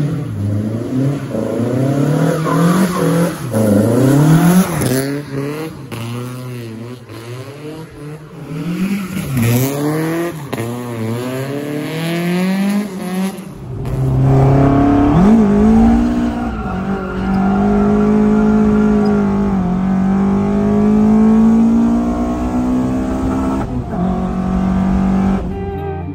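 A car engine, the Corolla wagon's swapped-in 20-valve 4A-GE, revving again and again with its pitch rising and falling. About halfway through it changes to a steadier run with longer, slower swells in pitch, and it cuts off just before the end.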